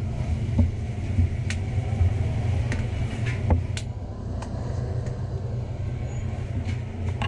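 Steady low rumbling hum with scattered light clicks and taps as a smartphone is handled and pressed on a workbench.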